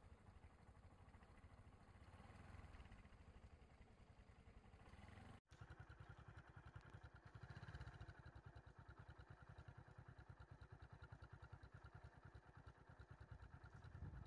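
Faint engine of a nearby idling vehicle, a low, even pulsing that drops out abruptly for an instant about five seconds in.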